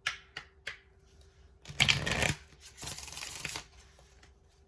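Tarot cards being handled: a few light taps, then the deck shuffled in two short bursts about a second apart.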